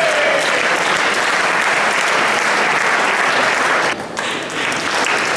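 Spectators applauding the end of a table tennis rally: steady clapping that dips briefly about four seconds in.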